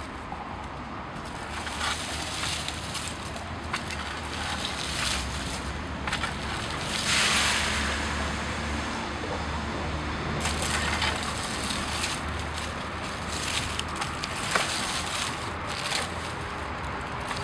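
Homemade rake with six wire tines scraping and rustling through dirt and dry leaves in repeated strokes, with small sharp ticks from twigs and a louder sweeping scrape about seven seconds in.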